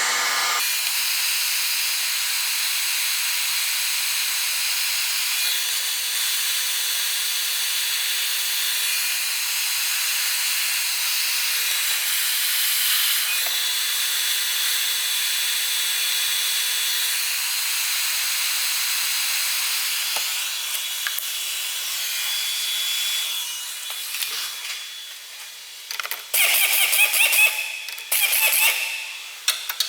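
Steady hiss of a heating tool working on a stuck suspension nut. It falters after about 23 seconds and gives way to irregular sputtering and clattering bursts near the end.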